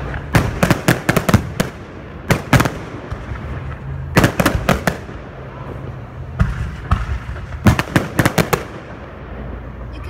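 Fireworks display finale: aerial shells bursting in rapid clusters of sharp bangs, with groups of bangs coming every second or two over a low rumble.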